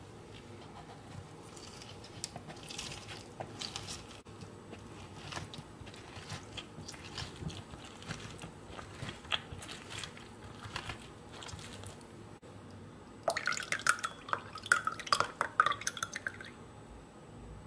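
Mandarin halves squeezed and twisted on a plastic hand citrus juicer: scattered wet squelches and small scrapes. About three-quarters of the way through, the juice is poured from the juicer into a small bowl, a louder stretch of splashing and trickling that stops shortly before the end.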